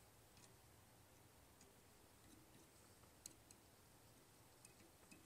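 Near silence, broken by a few faint, scattered light clicks, the sharpest a little past the middle: a small hand tool touching the metal of a saxophone strap ring and its clamp while a heat-shield paste is worked on.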